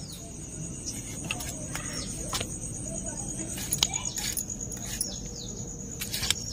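An insect keeps up a steady high-pitched trill while birds give short falling chirps now and then. A few sharp clicks come at intervals.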